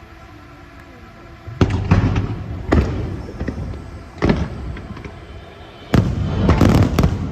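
Aerial fireworks shells bursting with loud booms. The first comes about a second and a half in, two more follow a second or so apart, and a quick cluster of bangs comes near the end.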